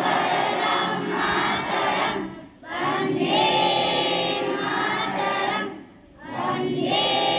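A group of schoolchildren singing together in unison in long held phrases, with short pauses for breath about two and a half and six seconds in.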